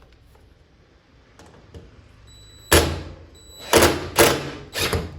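Cordless power drill run in four short, loud bursts in the second half, with a thin high whine just before the first two, working into the sheet metal of a truck door for a mirror bracket screw.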